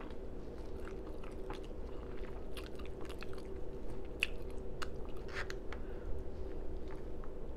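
Close-miked mouth sounds of someone eating shrimp fried rice: chewing with open-mouthed lip smacking, a string of scattered short wet clicks.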